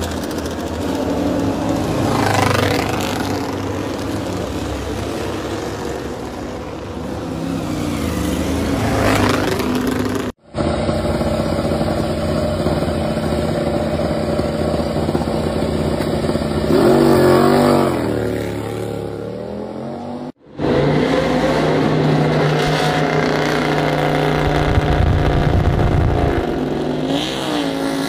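MotoGP racing motorcycles' four-cylinder 1000 cc engines running and being revved, the pitch repeatedly rising and falling. The sound breaks off abruptly twice, about ten and twenty seconds in.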